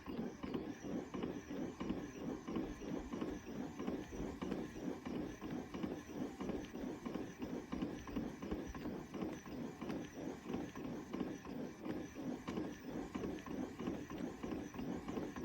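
GUGTTR electric under-desk elliptical exerciser running, its motor-driven pedals making a steady rhythmic churn about three times a second with a faint high whine that wavers in step.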